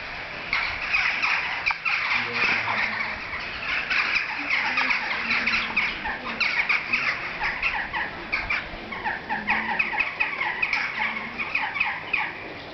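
A large flock of birds calling at once: a dense, unbroken chatter of many short overlapping calls, with the birds agitated after being spooked.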